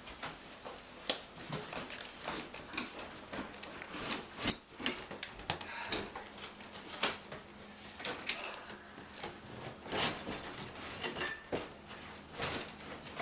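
A Maytag dishwasher being pulled and jiggled in its under-counter opening: irregular knocks, clunks and rattles, the loudest about four and a half seconds in. The unit is stuck on something behind it and will not slide out.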